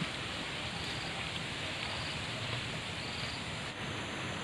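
A high insect chorus buzzing steadily and swelling about once a second, over a steady low hiss.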